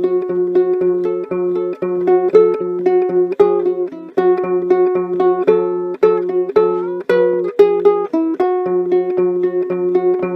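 Instrumental ukulele music: a plucked melody over a steady low note repeated about twice a second.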